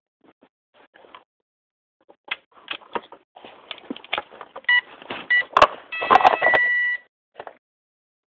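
Brushless speed controller startup beeps sounding through an EMAX CF2805 brushless motor as a two-cell battery is plugged in: handling clicks and rustles, two short beeps, a sharp click, then a longer beep of about a second.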